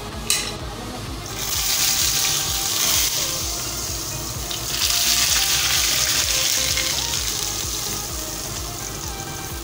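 Hot oil with cumin seeds sizzling as it is poured from a small pan onto yogurt, in two loud bursts, one about a second in and one about five seconds in, the second dying away slowly. A sharp knock comes just after the start, and faint music runs underneath.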